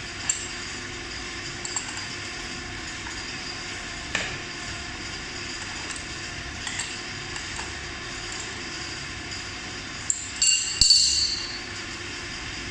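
Metal clinks of a steel adjustable wrench on a scooter's hub-motor axle nut: a few scattered single clinks, then a louder cluster of clinking about ten seconds in as the wrench is set down, over a steady background hum.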